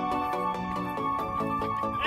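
Background music: an instrumental track with steady held notes and a quick run of short repeated notes.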